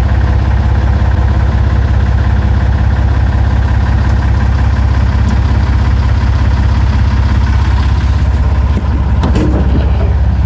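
Engine idling with a steady, even low throb, with a few brief knocks near the end.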